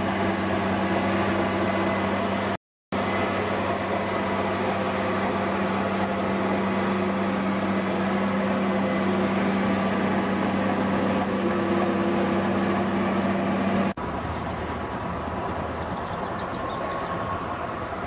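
Bulldozer's diesel engine running steadily with a deep, even drone, cut by a brief silence about three seconds in. Near the end it switches abruptly to a quieter, rougher rumble.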